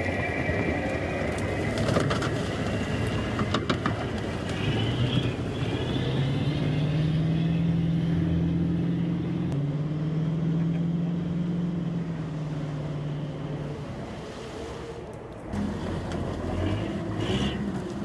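Amphibious assault vehicle's diesel engine running hard, with a few metallic clanks in the first four seconds; about five seconds in its note rises and holds high for several seconds, then fades. Near the end the sound changes abruptly to another running vehicle.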